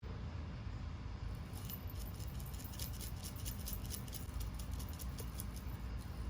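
Many quick, irregular light clicks and ticks, starting about a second in, over a steady low rumble.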